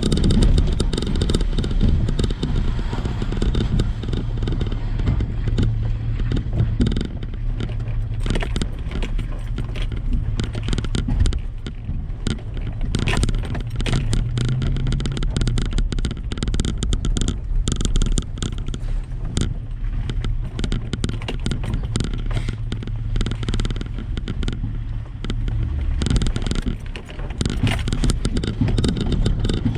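Truck engine running steadily at low revs while driving slowly off-road, with frequent clatter, knocks and scrapes from the vehicle and the rough trail under its tyres.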